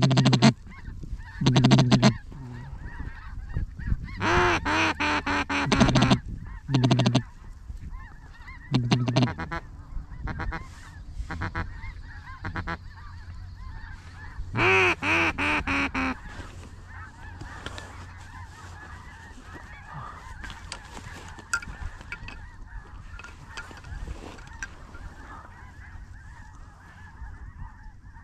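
Duck call blown in loud runs of quacks, about six separate bursts over the first half, while ducks work the decoys. After that, a quieter steady bed of distant waterfowl chatter remains.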